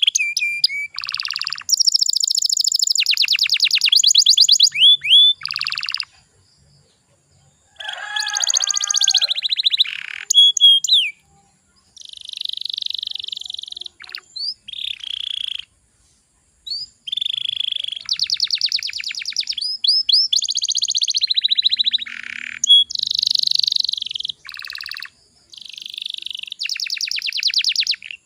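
Domestic canary singing: fast trilled rolls alternating with short whistled notes, with a couple of brief pauses.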